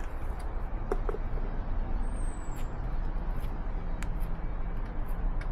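Steady low outdoor rumble, like distant traffic or wind on the microphone, with a couple of faint clicks from gloved hands handling the wires and a brief high falling chirp about two seconds in.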